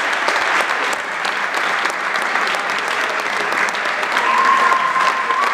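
A crowd of guests applauding, many hands clapping at once in a dense patter. A long high note sounds over the clapping near the end.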